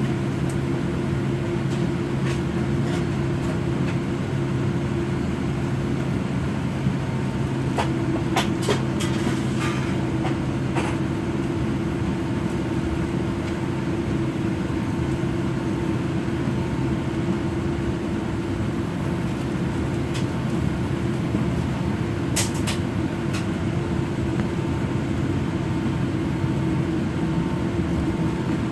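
Cabin noise of a Boeing 787 Dreamliner taxiing, heard from a window seat: a steady engine hum and low drone at taxi power. A few brief clicks come about a third of the way in and again past three-quarters.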